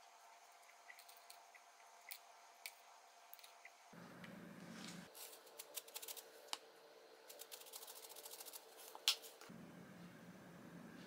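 Faint kitchen handling sounds from plating a salad: scattered soft taps as fresh blueberries are set on it, then a quick run of light ticks as dried parsley flakes are shaken over it, and one sharper knock a little after the middle.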